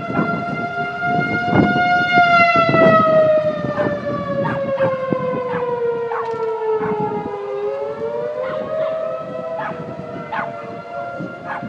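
Outdoor warning siren sounding for a tornado warning: one steady loud wail whose pitch slides slowly down over about seven seconds, then climbs back up. Short sharp sounds repeat over it throughout.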